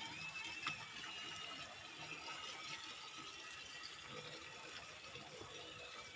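Faint steady running water, with a few faint high whistling tones and a small click about a second in.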